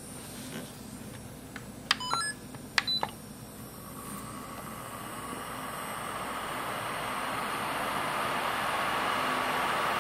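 A Bandi electric nail drill's control unit beeps a few times about two to three seconds in, then the handpiece motor starts running and gets gradually louder as its speed is turned up.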